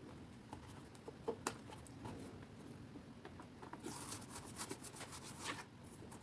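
Faint handling of cardstock: a few light taps and soft scratchy rustling, louder for a second or two about four seconds in, as a bone folder is slid under the paper pleats to lift them.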